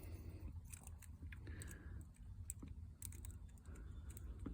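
Faint, irregular light clicks and scratches of a steel lock pick and tension wrench working the pins inside a Master Lock ProSeries 6852 six-pin padlock.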